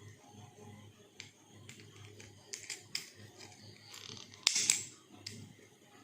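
Light clicks and taps of a butane blow torch being handled. About four and a half seconds in comes a sharp click with a short hiss lasting about half a second.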